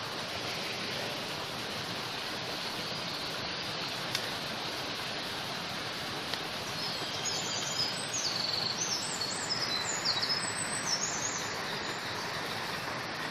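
Steady rush of flowing creek water, with small birds chirping in quick runs of short high notes through the middle of the stretch.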